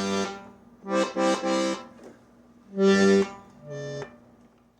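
A 1950s Italian accordion sounding a series of short chords with pauses between: one dying away at the start, three quick ones about a second in, a loud one around three seconds and a softer, lower one near the end.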